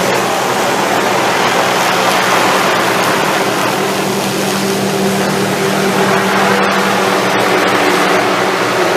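Helicopter running steadily overhead: a loud, unbroken rushing noise of rotor and engine with a steady low hum.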